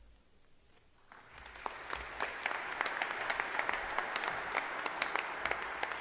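Congregation applauding: the clapping starts about a second in and quickly builds to a steady, full round of applause.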